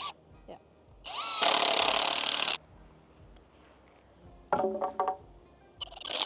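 Power drill driving a screw into the wooden frame: the motor winds up with a rising whine about a second in, then runs loud for about a second and a half and stops.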